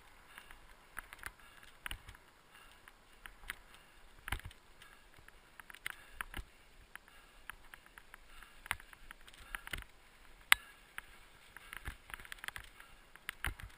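A dog-pulled dryland rig rattling and knocking as it bounces over rough grass, with irregular clicks and one sharp knock about ten seconds in.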